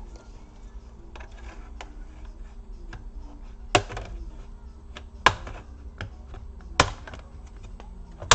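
Plastic snap-fit clips of a laptop case popping free as the top case is pried off the bottom case: small clicks and rattles, then four sharp snaps about a second and a half apart in the second half.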